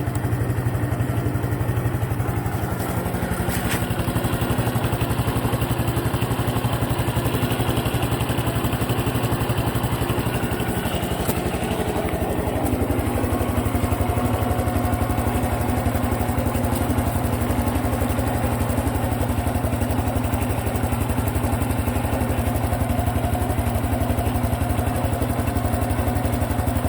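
Honda Cub Pro's single-cylinder four-stroke engine running steadily, with an even rapid beat; its note shifts about halfway through. This is the engine whose abnormal noise a countermeasure oil change was meant to cure.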